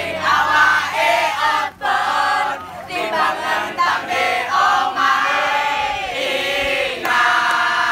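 A group of young men and women singing a chant together, loud, many voices at once.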